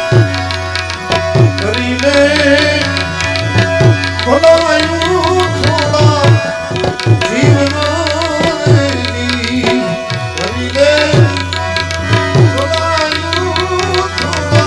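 Tabla and harmonium playing devotional music, the tabla's bass drum strokes sliding down in pitch over and over beneath a harmonium melody.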